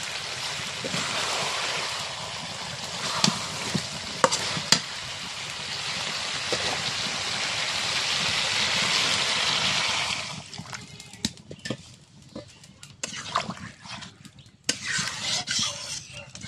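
Chicken and potato curry frying in a large metal pot: a steady sizzle, with the scrape and clink of a metal spatula stirring it. About ten seconds in the sizzle stops, leaving scattered clinks and the sound of the now-watery curry being stirred.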